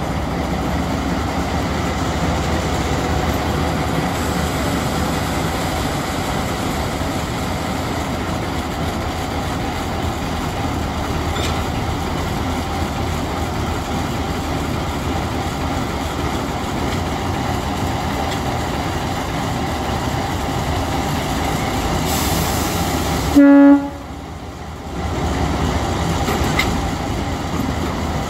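TU2 narrow-gauge diesel locomotive's engine running steadily, with one short, loud horn toot near the end.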